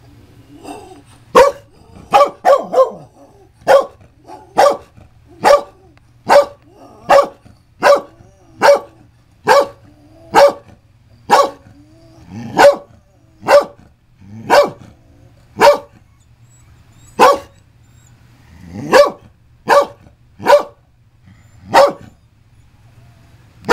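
Scottish Terrier barking over and over in sharp single barks, mostly about one a second, with a quick run of three near the start.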